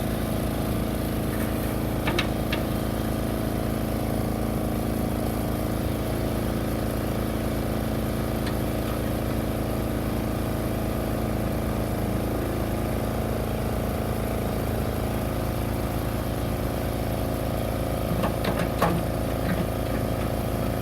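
Komatsu PC55MR-3 midi excavator's diesel engine running steadily at an even speed, with a few light metallic clinks about two seconds in and again near the end.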